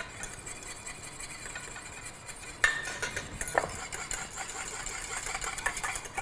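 Wire whisk beating béarnaise sauce in a stainless steel saucepan, a steady rapid clatter of the wires against the pan. The clarified butter has been added to the egg-yolk base and the sauce is being whisked into an emulsion. A sharper knock comes about two and a half seconds in.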